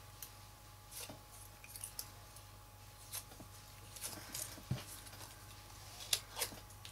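Die-cut cardstock poinsettia leaves being curled over the back of a paper piercing tool: faint, scattered paper rustles and scrapes, a short one about every second.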